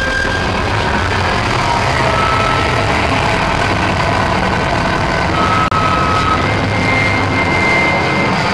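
Loud, distorted noise from a live punk band's amplified guitars, overloading the microphone, with long held high tones over a dense wash. There is a brief dropout about two-thirds of the way through.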